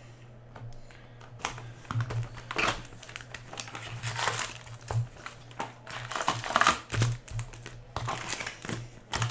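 Foil wrappers of Upper Deck hockey card packs crinkling and tearing as they are opened by hand. The sound comes as irregular rustles and crackles, starting about a second and a half in.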